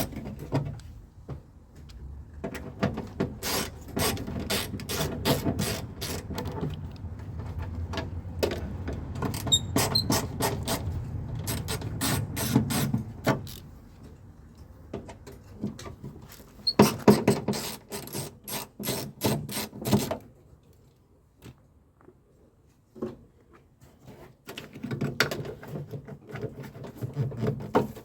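Hand tools clicking and rattling against a car door as the door speaker is unfastened and removed: bursts of sharp clicks, with a quieter lull past the middle.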